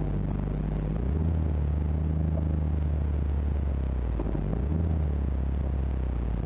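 A 4x4 truck's engine heard from inside the cab, running at low speed with a steady low drone as the truck creeps forward off-road. Its tone shifts twice, about a second in and again around four and a half seconds in, as the throttle is eased and reapplied.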